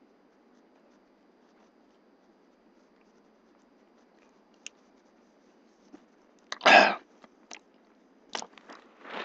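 Mouth and breath noises from a man with a spoonful of dry cinnamon in his mouth: quiet for most of the time, then one loud, sharp burst of breath about seven seconds in, followed by a few clicks and shorter breathy puffs.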